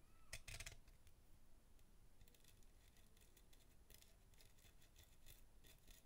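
Faint scratching of a stiff bristle brush scrubbing the laser sled and worm gear of a minidisc player mechanism clean, in short strokes. The strokes are loudest about half a second in.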